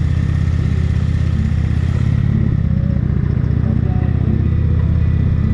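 Touring motorcycle's engine running steadily at road speed, a dense low rumble heard from the rider's seat, with road and wind hiss over it that drops off about two seconds in.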